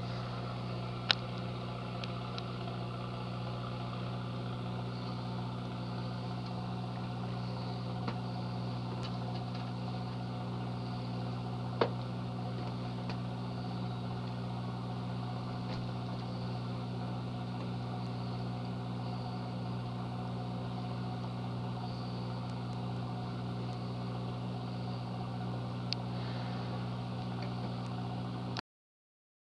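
Steady, even hum of an anchored purse seiner's running onboard machinery (engine or generator), with a couple of sharp clicks. It cuts off abruptly near the end.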